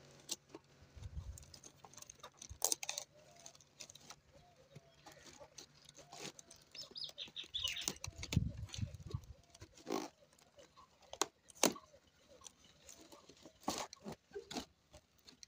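Plastic and paper packaging rustling and crinkling as a parcel is unwrapped by hand, with scattered sharp crackles and taps as a cardboard box is handled.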